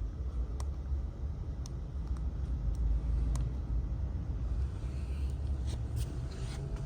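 Steady low rumble with a faint hum and a few scattered light clicks.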